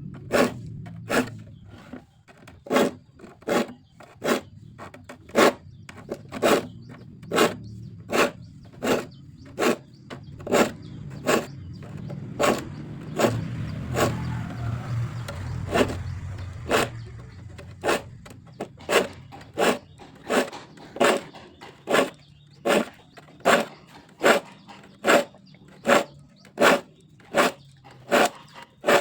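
A metal file rasping across hand-saw teeth in short, even strokes, about two a second, as the saw is sharpened.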